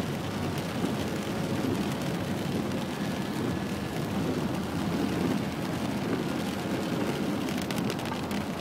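Steady noise of a car driving through torrential rain on a flooded street, heard from inside the cabin: rain on the car and tyres running through standing water.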